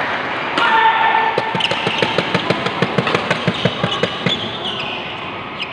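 Badminton doubles rally: racket hits on the shuttlecock and quick thudding footwork on the court, a fast run of sharp hits and thuds that stops about four and a half seconds in.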